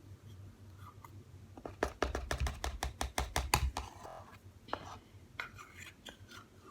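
Slime being stirred with a stick in a container: a quick run of clicks and knocks, about six or seven a second for two seconds, then a few scattered clicks.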